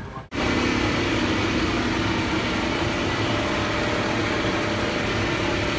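Concrete mixer's engine running steadily with a constant low hum, starting abruptly after a brief dropout just after the start.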